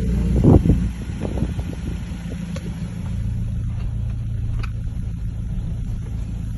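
A motor vehicle's engine running steadily at a low pitch, with a loud thump about half a second in and scattered lighter knocks.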